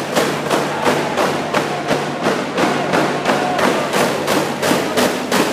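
A drum beating a fast, even rhythm, about three to four strikes a second, with voices singing along to the beat for the dancers.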